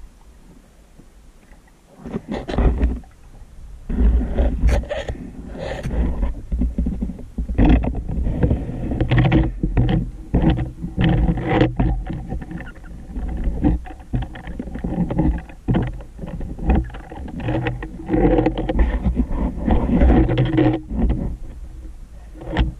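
Muffled underwater rumbling and knocking in irregular bursts, from a spearfisher's movement and the handling of the speargun, picked up by the diver's camera underwater.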